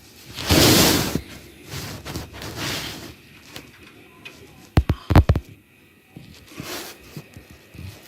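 Handling noises: a few scraping, rustling passes, then a quick run of about five sharp clicks a little under five seconds in.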